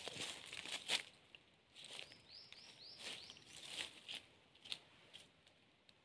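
Dry leaves and brush rustling and crunching as a person moves through undergrowth and handles a stick, loudest in the first second. About two seconds in, a bird gives a quick run of five or six short chirps.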